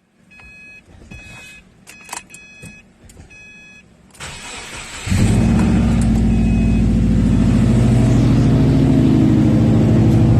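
An electronic dashboard chime sounds in short pulses. About four seconds in the starter cranks, and just after five seconds the 2008 Subaru WRX's turbocharged 2.5-litre flat-four catches and settles into a loud, steady idle through a 3-inch catback exhaust with a Vibrant Stealth muffler, on an engine the owner says has rod knock.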